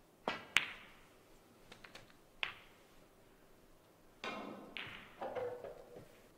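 Snooker cue tip striking the cue ball, followed a quarter second later by a sharp clack of ball on ball. Another ball click comes about two seconds in, and a longer, duller stretch of knocking and rustling follows in the last two seconds.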